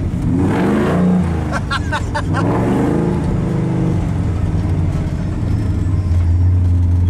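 Lifted 4x4 pickup's engine heard from inside the cab while driving a packed snow trail, its note rising and falling with the throttle for the first few seconds, then holding a steady drone that grows a little louder near the end.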